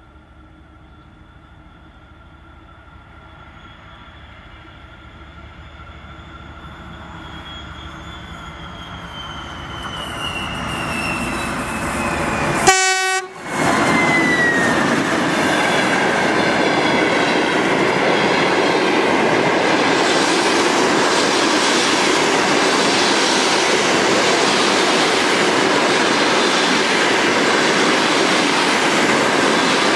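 TEP70 diesel locomotive approaching: a high whine that grows steadily louder and slides down in pitch as it draws near, with a short horn blast just before an abrupt cut about 13 s in. The passenger train then passes close by, a loud steady rumble and clatter of the coaches' wheels on the rails.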